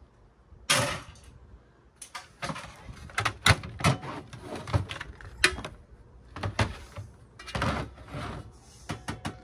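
A DVD player's plastic and sheet-steel casing being pried apart and handled by hand: irregular clatter, knocks and scraping of the panels. There is a sharp knock just under a second in, and the knocks come thicker from about two seconds on.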